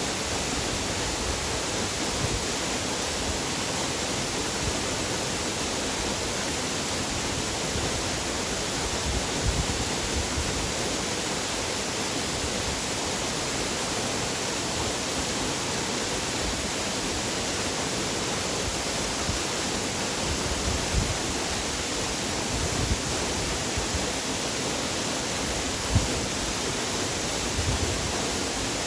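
Waterfall rushing: a steady, even noise of falling water, with a few brief low thumps, the sharpest about 26 seconds in.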